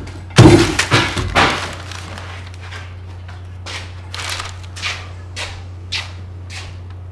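A loud crash about half a second in, followed by a clatter of smaller hits that dies away within about a second, then a few short, softer sounds spaced a second or so apart.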